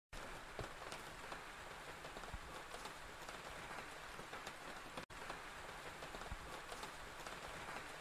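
Steady rain falling, with many scattered drops ticking on surfaces. The sound drops out for a moment about five seconds in.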